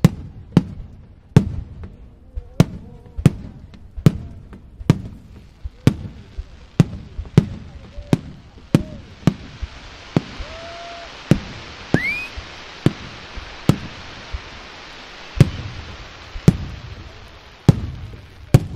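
Aerial fireworks display: shells bursting in quick succession, a little more than one bang a second. A hiss swells in the middle, and a short rising whistle sounds about twelve seconds in.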